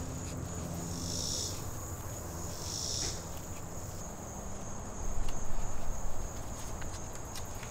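Insects trilling steadily in a high, even tone, swelling briefly twice, with a short low rumble about five seconds in.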